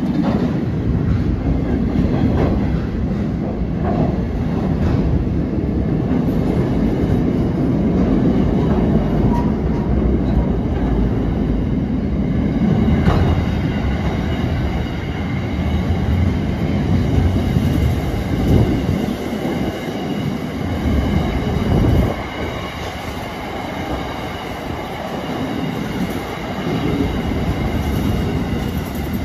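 A train passing on the track, a continuous heavy rumble of wheels on rail that eases somewhat in the last few seconds.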